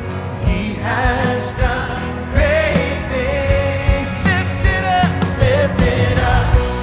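Worship music: a sung vocal line with vibrato over a band with steady bass and drums.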